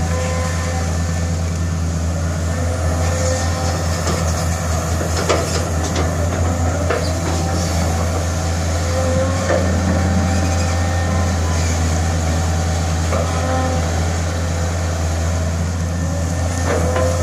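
Caterpillar 320C long-reach excavator's six-cylinder diesel engine running steadily under working load, with a whine from the hydraulics that rises and fades as the boom and bucket move. A few clanks and knocks come from the bucket working the soil, several in the middle and more near the end.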